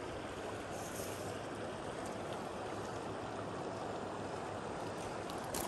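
Steady rush of a flowing river current, even and unbroken, with a short click near the end.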